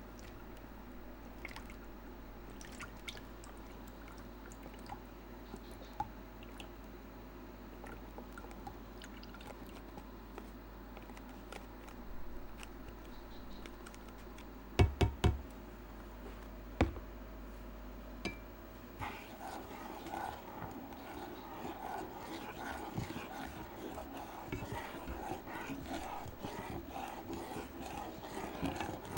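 Kitchen handling sounds from making dalgona coffee over a low steady hum: scattered small clicks and liquid sounds, a quick cluster of sharp clinks about halfway through, then a denser continuous rustling texture in the last third.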